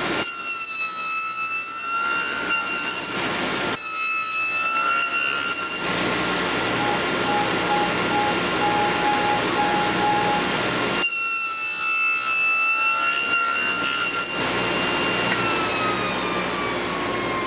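Table saw running and cutting box-joint finger slots in wood boards held in a sled jig, with a steady high blade whine through the cuts. Near the end the whine falls in pitch as the saw is switched off and spins down.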